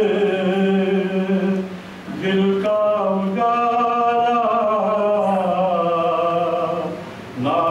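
A man singing a naat unaccompanied, drawing out long melismatic notes in two phrases, with a brief break about two seconds in and another near the end.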